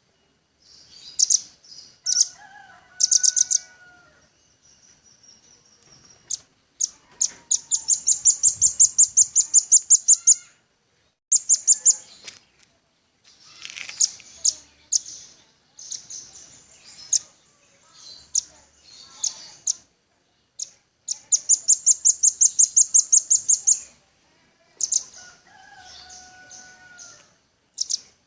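Velvet-fronted nuthatch calling: high, sharp notes in fast rattling series of about six notes a second, each series lasting a few seconds, with shorter chips in between. A lower whistled phrase comes twice, about two seconds in and again near the end.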